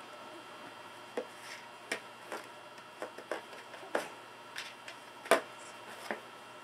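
Empty plastic container knocked against a wooden floor and clawed by a cat at play: irregular clicks and knocks, about a dozen, the loudest a little past five seconds in.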